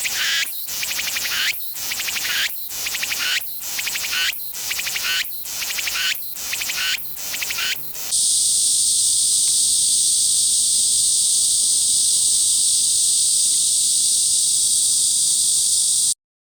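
Male cicadas singing: first a call in rhythmic repeated phrases, about one a second, then, about halfway through, a different cicada's steady high-pitched continuous buzz that cuts off suddenly near the end.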